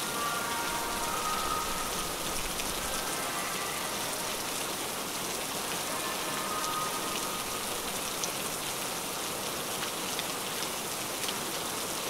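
Steady rain: an even hiss with scattered ticks of drops, and faint soft musical tones that come and go.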